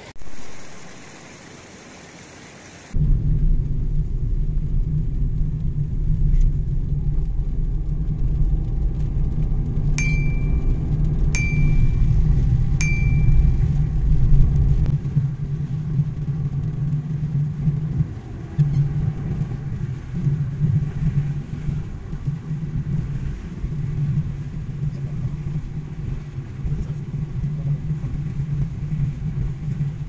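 Car driving on a wet road in the rain, heard from inside the cabin: a steady low rumble of road and engine noise with rain on the car. It starts suddenly about three seconds in, after a brief swell of noise that fades away. About ten seconds in come three short high beeps, roughly a second and a half apart.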